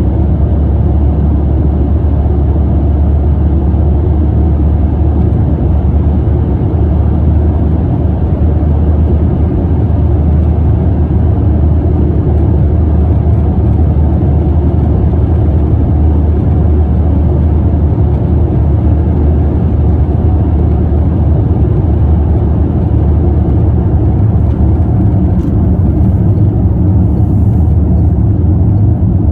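A car driving at a steady pace, heard from inside the cabin: a steady low rumble of road and engine noise.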